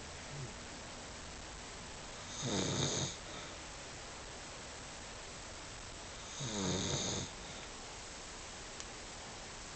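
A person snoring in sleep: two long snores about four seconds apart, each lasting under a second.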